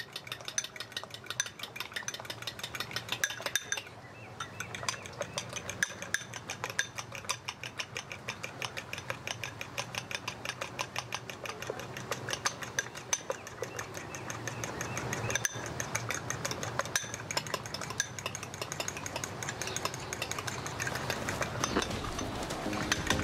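A utensil stirring or beating rapidly in a pot or bowl, scraping and clinking in an even rhythm of about four to five strokes a second.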